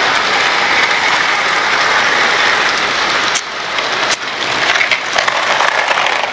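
OO gauge model Class 43 HST train running along the track: the steady mechanical noise of its motor, gears and wheels on the rails, with two sharp clicks about three and a half and four seconds in.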